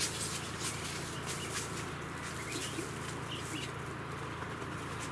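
Outdoor ambience with faint bird calls, a few short chirps, over a steady background hiss, with scattered short crackles or rustles.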